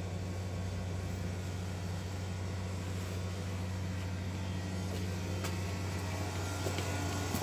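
Steady low machinery hum, a constant drone with a deep tone and a fainter one above it, fading right at the very end.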